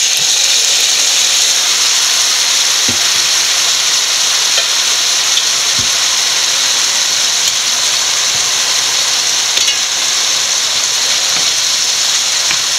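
Squid rings and their water landing in a hot pan of sautéed capsicum, onion and tomato masala, setting off a steady sizzle that jumps up at the start as they go in. A few faint knocks of the wooden spatula against the pan sound through it.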